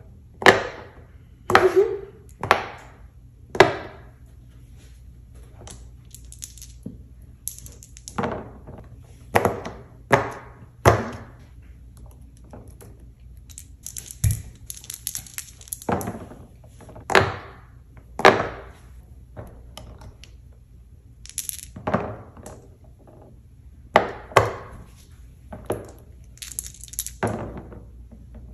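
Bubbles of a silicone pop-it board being pressed one at a time, each giving a short, sharp pop, at irregular intervals. About halfway through, dice are shaken in the hand and rolled onto the silicone board.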